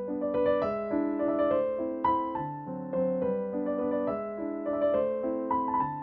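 Background music: a gentle piano melody, notes struck a few times a second and left to fade.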